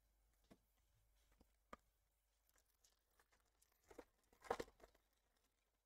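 Near silence with faint handling of trading cards and foil pack wrappers: a soft click a little under two seconds in, and a brief cluster of short rustling noises about four and a half seconds in.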